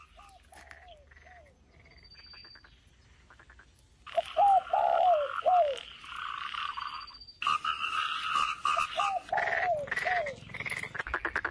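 Frogs croaking: short, falling calls in bursts of three or four, repeated three times, with a hiss between the bursts.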